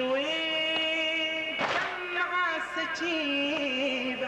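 A man chanting a Shia latmiya mourning lament in long, held, ornamented notes. About halfway through, the mourners' chest-beating lands as one sharp slap in unison.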